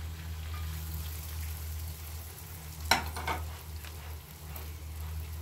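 Snap peas stir-frying in butter in a frying pan, sizzling softly over a steady low hum. About three seconds in, there is a sharp clack followed by a couple of lighter knocks.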